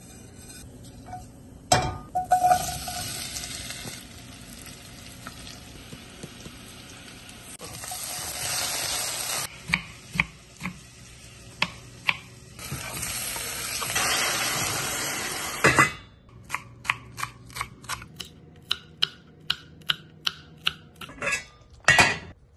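Cumin seeds sizzling in hot oil in a steel saucepan, a steady hiss that swells twice. After that a knife chops through tomatoes on a wooden cutting board at about three cuts a second, and something clatters loudly near the end.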